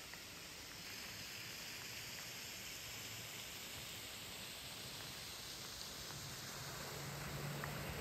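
Steady hiss of rainfall. From about six seconds in, a car's engine and tyres approach on the wet road, growing louder.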